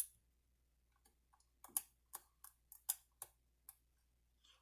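Small, sharp metallic clicks at irregular intervals, bunched together in the middle: a hook pick working the pins of a Den Brass challenge lock's cylinder under very light tension.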